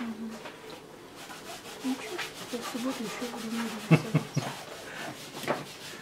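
Palette knife scraping and pressing oil paint on canvas in a series of short strokes, the sharpest about four seconds in.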